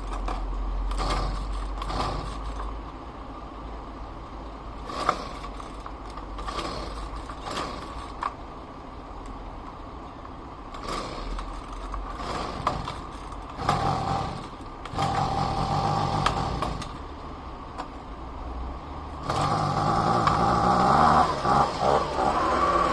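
Husqvarna handheld leaf blower's small two-stroke engine being cranked with the pull starter with no choke, as it is tried on a no-start, with clicks and clatter. It grows louder for a couple of seconds about two-thirds through and again near the end.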